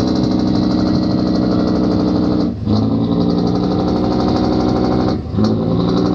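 A boat's engine running steadily at a constant speed. Its level dips briefly twice, about two and a half seconds in and again about five seconds in.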